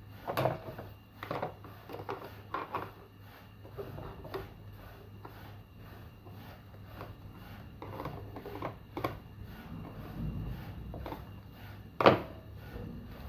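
Metal parts and tools clicking and knocking while a washing machine is being dismantled: scattered light clicks and taps with some rubbing, a brief low rumble about ten seconds in, and one sharper knock about twelve seconds in.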